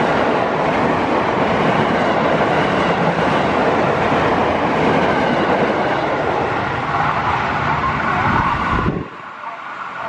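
Electric commuter train (KRL multiple unit) passing close at speed: steady wheel-on-rail rumble with some clatter. It cuts off suddenly near the end.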